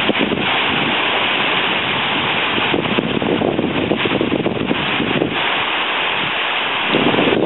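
Fast river water rushing, with wind buffeting the microphone in uneven gusts.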